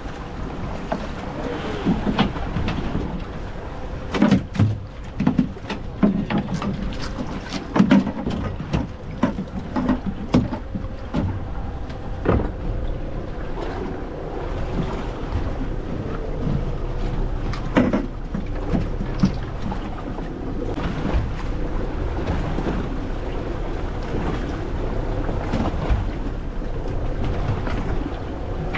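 Wind and sea water around a small fishing boat, with a faint steady hum. A run of sharp knocks and thumps on the boat comes in the first half, and one more follows a little later.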